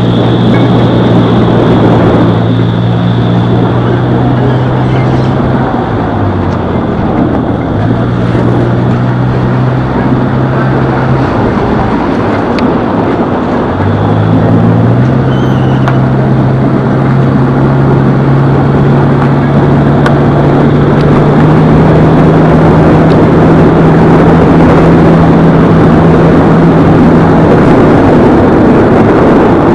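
A motor vehicle's engine running on the move under loud wind and road noise. The engine hum drops and rises in pitch a few times as its speed changes.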